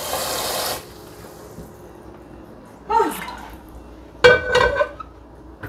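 Kitchen tap running into a steel sink for under a second, then shut off. Two short voice exclamations follow, about three and four seconds in, the second one loud.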